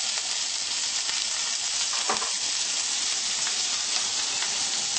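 Gambas searing in hot olive oil in a frying pan over high heat: a steady sizzle as they take on colour.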